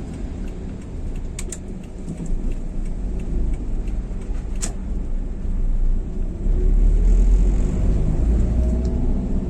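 Daihatsu Xenia 1.3-litre engine and road noise heard from inside the cabin while driving, after a carbon-cleaning tune-up meant to cure its rough 'snoring' running. It is a steady low rumble that grows louder about six and a half seconds in, with a couple of faint clicks.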